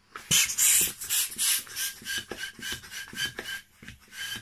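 Hand balloon pump inflating a long modeling balloon: a quick series of air-pushing strokes, each a rasping rush of air with a faint whistle, strongest at the start.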